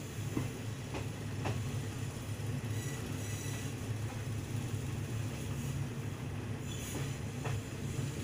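Passenger train running along the track, heard from an open coach window: a steady low rumble of wheels on rails with a few faint clicks.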